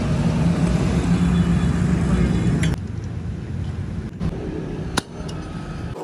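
A low steady rumble that cuts off abruptly, followed by quieter workshop handling with a couple of sharp metal clinks from tractor gearbox parts being moved.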